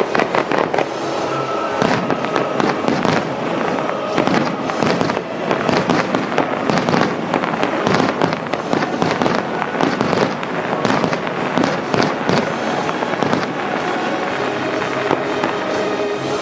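Fireworks display: shells bursting and crackling in rapid, near-continuous succession, with music playing underneath.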